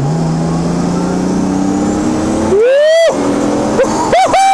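Turbocharged Toyota Supra engine swapped into a VAZ-2104, heard from inside the cabin at full throttle, its note climbing steadily. About two and a half seconds in, a loud rising wail cuts over the engine, and a few shorter loud wails follow near the end.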